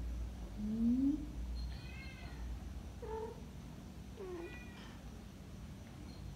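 Domestic cats yowling and meowing. A low, rising yowl about a second in is the loudest call, followed by three shorter meows.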